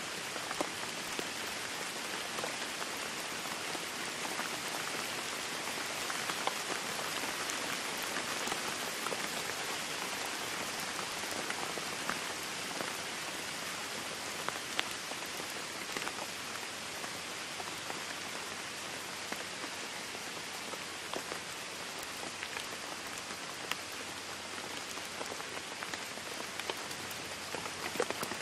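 Jet airliner cabin noise in flight: a steady, even rushing hiss with scattered faint crackles.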